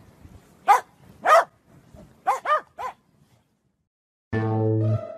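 A corgi barks five times in short, quick barks over the first three seconds. Near the end, music with low strings starts.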